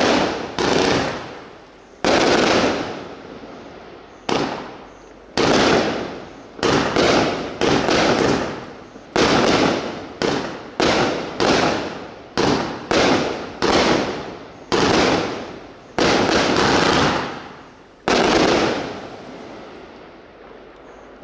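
Bright Star Pandora's Box 96-shot 1.3G barrage cake firing its shots: a run of sharp firework bangs, irregularly spaced from one every half second to one every two seconds, each trailing off over a second or so. The last bang comes about three seconds before the end, then the sound fades away.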